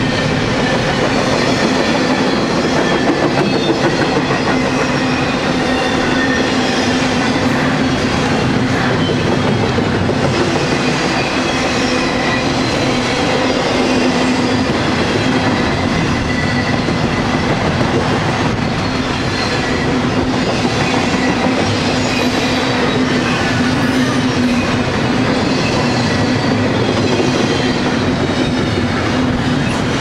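Cars of a Norfolk Southern intermodal freight train, double-stack container cars and trailers, rolling steadily past: continuous wheel-on-rail noise with a steady hum and faint high-pitched whines.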